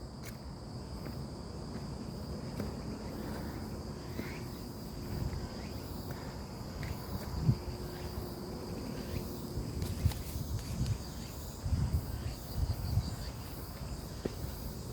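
Insects trilling steadily in a high, even drone, over a low uneven rumble with scattered soft knocks.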